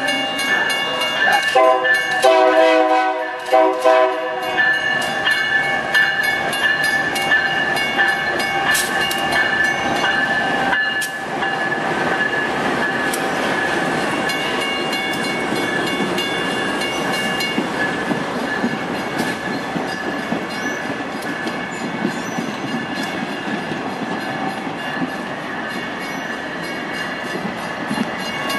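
A train horn sounds in several short pulsing blasts in the first few seconds. After that comes the steady running noise of a passing passenger train, its carriages rolling along the rails.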